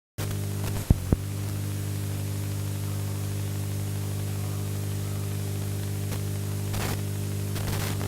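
Steady electrical mains hum with static hiss on a VHS tape's audio track, cutting in abruptly just after the start, with two sharp clicks about a second in.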